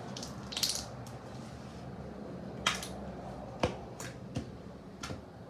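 Handling noises: a short hiss about half a second in, then a handful of sharp, separate clicks and taps spread over the next few seconds.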